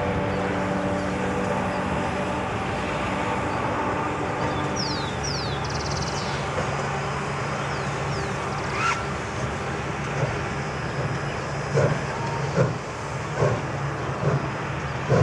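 Distant steam-hauled passenger train crossing a steel viaduct: a steady rumble of the coaches, joined from about ten seconds in by regular exhaust beats a little over one a second from the Baldwin steam locomotive. A bird chirps a few times near the middle.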